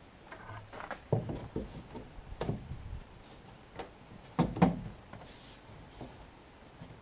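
Irregular knocks and clunks of wooden framework pieces being handled and set down, with a cluster of hits about a second in and the loudest pair near the middle.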